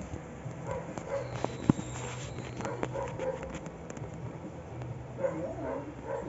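A sleeping pet snoring in long, low breaths, with a sharp click a little under two seconds in.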